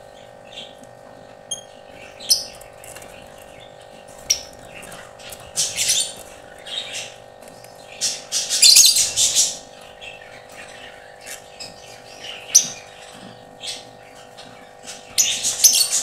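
Caged lovebirds, a Fischer's lovebird among them, giving sharp chirps and squawks in scattered bursts. The loudest and longest run of calls comes about eight to nine and a half seconds in, with another near the end, over a steady background hum.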